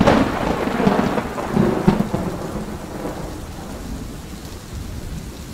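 Thunder: a sharp crack at the start and a rolling rumble with a second crack about two seconds in, fading over the next couple of seconds into steady rain.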